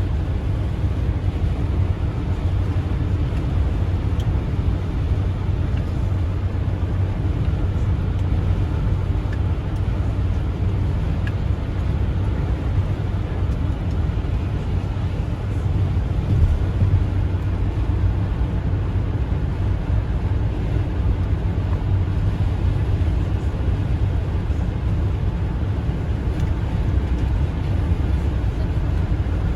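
Car driving at highway speed: a steady low rumble of tyres and engine.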